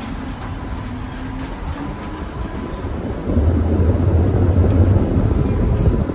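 New Orleans streetcar 460 running along the St. Charles line track: a steady low rumble of wheels on rail and traction motors that grows clearly louder about three seconds in, then eases off near the end.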